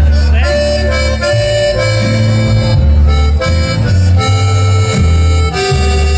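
Norteño music instrumental break: a reedy accordion melody with a bass line stepping from note to note, and no singing.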